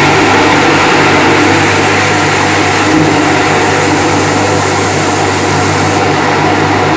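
Airless paint sprayer running: a steady machine hum under a loud hiss. The highest part of the hiss cuts off about six seconds in.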